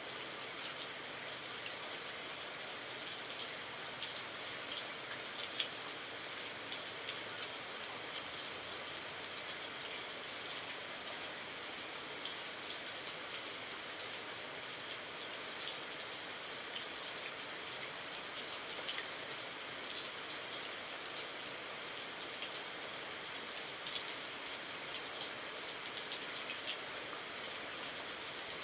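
Steady rain falling, a continuous hiss with many small drips and ticks of drops striking surfaces.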